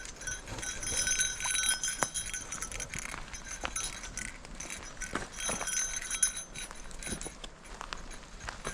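Footsteps on a trail, irregular crunching steps, with light metallic jingling that rings for a second or so, twice.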